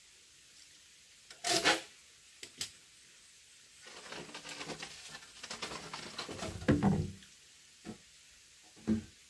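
Bamboo poles knocking and scraping as they are handled and laid: a couple of separate hollow knocks, then a few seconds of scraping and rattling ending in a heavier knock, then two more knocks near the end.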